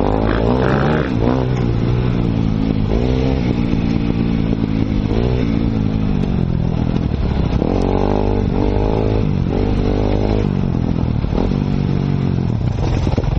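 Enduro motorcycle engine revving up and down over and over as it is ridden, heard from the rider's own helmet, with a run of quick throttle blips about eight seconds in.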